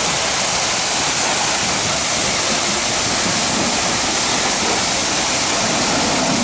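Pressure-washer lance spraying water onto a car's bodywork to rinse it: a steady, even hiss.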